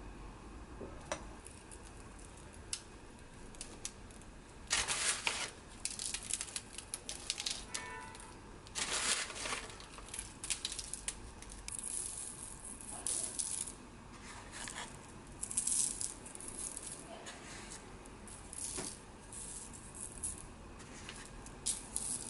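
Crushed nurungji (toasted scorched-rice crumbs) sprinkled by hand over meringue cookies on a parchment-lined baking tray, the bits landing on the paper in irregular bursts of light crackling every second or two.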